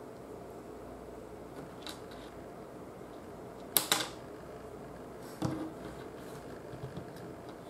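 Small strong magnets clicking together and against a hard tabletop: a quick pair of sharp clicks about four seconds in, another about a second and a half later, and a few fainter ticks, over a steady low room hum.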